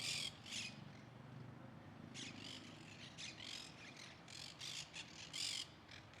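Songbird giving a series of short, high, harsh calls: a couple at the start, then a denser run from about two seconds in, over a faint low hum.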